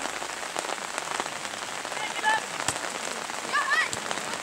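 Rain pattering steadily, with many small drop hits. High voices call out briefly twice, about two seconds in and again a second and a half later.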